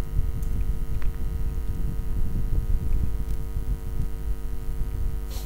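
Steady electrical mains hum with a low rumble, with a few faint clicks.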